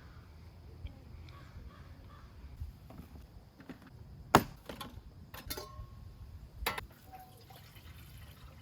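A few sharp knocks over a low rumble, the loudest about halfway through.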